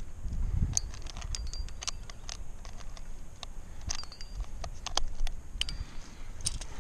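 Climbing rack of metal cams and carabiners clinking and jangling on a harness, with many scattered sharp clicks and a few short metallic rings as a cam is taken off and placed in a crack. A low rumble runs underneath.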